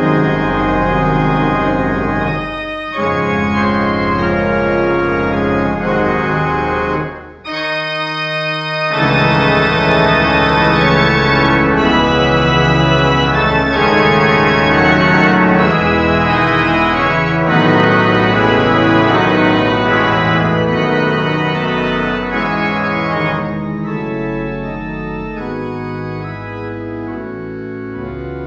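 Church pipe organ playing full sustained chords. About seven seconds in it thins to a few held notes for a moment before the full sound returns, growing a little softer over the last few seconds.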